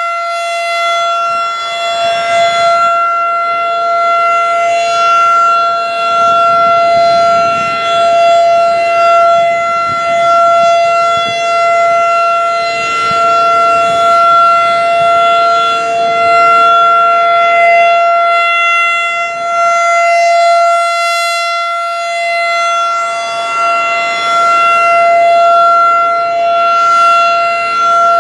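Federal Signal 2001-DC outdoor warning siren sounding a steady alert tone at full speed. Its loudness swells and fades every few seconds as the rotating head sweeps round, and a second, lower steady tone runs underneath.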